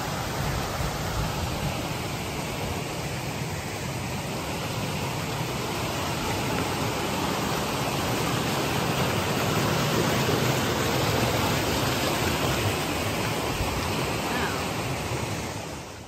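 Mountain creek rushing in a whitewater cascade over boulders, a steady loud roar of falling water.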